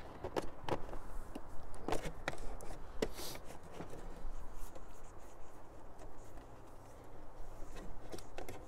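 Hands unpacking a cardboard box with a moulded plastic tray, lifting out a coiled cable and a small boxed router: scattered rustling, scraping and light knocks of packaging.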